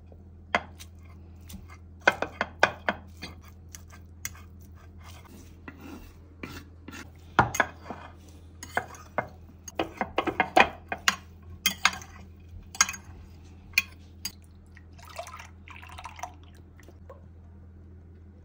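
Kitchen utensils clinking and tapping against dishes, in irregular sharp knocks, some in quick clusters, with a couple of brief rustles, over a steady low hum.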